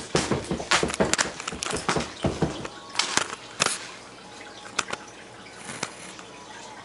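Camera handling noise: rapid, irregular knocks, clicks and rustles as the camera is moved about, for about three and a half seconds, then quieter with a few single clicks.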